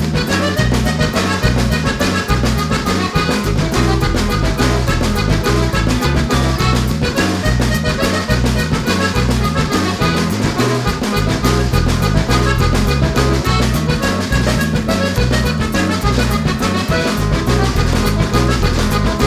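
Background music with a prominent accordion-like lead over a steady bass line.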